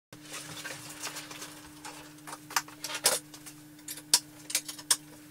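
Irregular clicks and sharp knocks of hand work at a wooden workbench, with a steady low hum underneath; the loudest knocks come about three and four seconds in.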